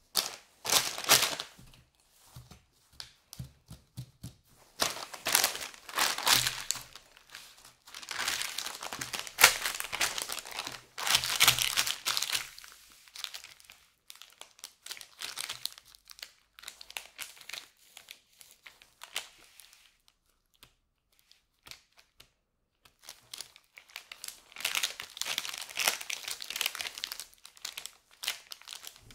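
Polypropylene chip bag crinkling as gloved hands handle it, smooth it flat and turn it over. The crackling comes in several spells, separated by short quiet pauses.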